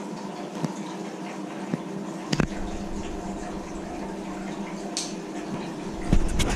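Aquarium water running and burbling over a steady hum from the tank's filter pump. A sharp knock comes about two and a half seconds in, and a few more near the end.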